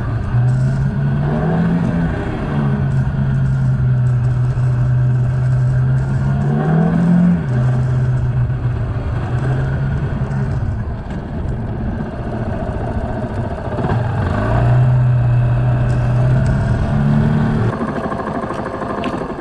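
Suzuki GrassTracker BigBoy's single-cylinder engine running under way. Its note climbs and drops back several times as the motorcycle accelerates and changes gear.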